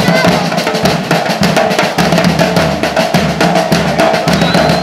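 Bombos (big bass drums) and snare drums of a fans' drum band pounding out a fast, steady rhythm, loud throughout.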